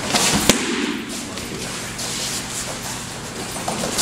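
A taekwondo kick striking a handheld kicking paddle: one sharp slap about half a second in.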